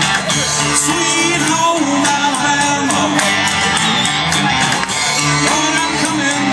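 A live rock band plays a song cover through a PA, with guitars, drums and a singer.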